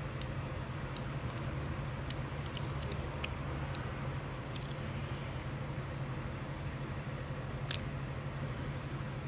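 Small metal clicks and taps from the parts of a Baldwin mortise lock being handled and fitted back together, with one sharper click about three-quarters of the way through, over a steady low hum.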